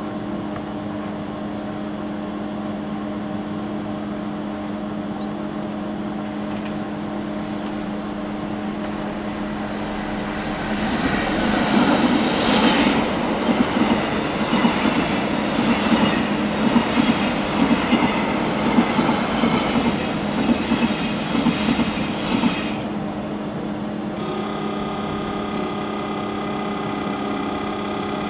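Rhaetian Railway passenger train of red coaches passing close by, its wheels clattering over the rails for about twelve seconds from about eleven seconds in. Under it runs the steady electric hum of a standing Ge 4/4 III locomotive, which goes on alone before and after the train.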